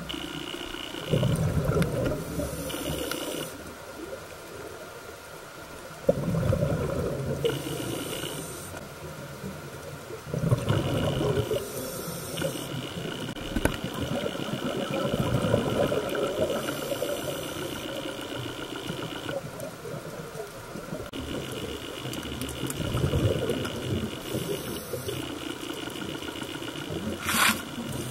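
Underwater sound through a camera housing: a scuba diver's regulator breathing, with exhaled bubbles rumbling out in bursts every few seconds over a steady hiss.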